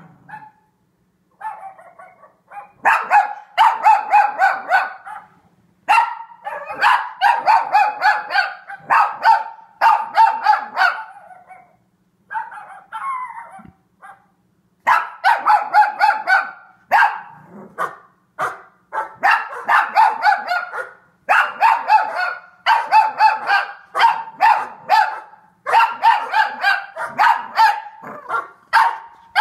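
A young black-and-tan Cavalier King Charles Spaniel barking and yipping in quick bouts of several barks, each bout a second or two long with short pauses between, a quieter stretch near the middle. The barking is its reaction to other dogs shown on the TV.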